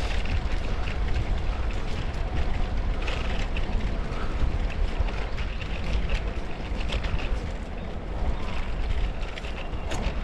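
Wind buffeting an action camera's microphone while riding, a steady low rumble with scattered faint ticks and rattles over it.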